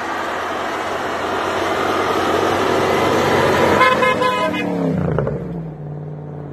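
Jeep Grand Cherokee driving up a snowy track past the camera, its engine running hard with a rising rush of engine and tyre noise. About four seconds in a car horn toots briefly as it passes, then the engine note falls and settles lower as it moves away.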